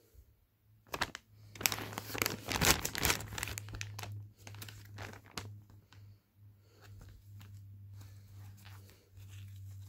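Plastic packaging bag crinkling and rustling as goalkeeper gloves are pulled out of it. The crackle is densest and loudest about two to three seconds in, then thins to a few short rustles, with only soft handling noise near the end.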